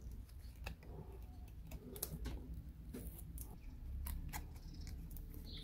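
Faint crackling and small irregular clicks of protective film being peeled by fingertips off a small clear plastic window pane.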